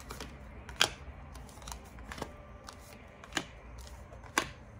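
Tarot cards being shuffled and handled, with irregular sharp card snaps, the loudest a little under a second in and again near the end.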